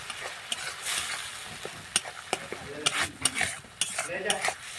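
A metal spatula stirring and scraping food that is frying in a pan. There is a steady sizzle and repeated sharp clinks of metal against the pan.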